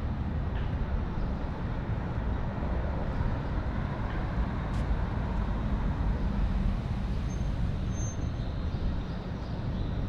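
Street ambience: a steady low rumble of road traffic.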